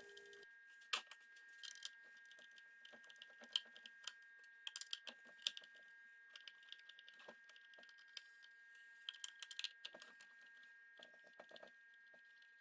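Scattered light clicks and ticks of a screwdriver and small screws being worked while unscrewing speakers from a plastic housing, irregular with a few sharper taps, over a faint steady high whine.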